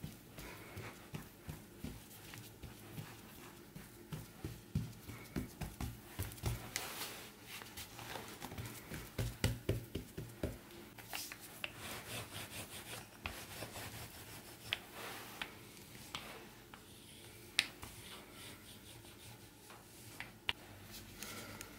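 Hands kneading and pressing soft cottage-cheese dough on a floured worktop: repeated dull thuds and rubbing, thickest in the first half.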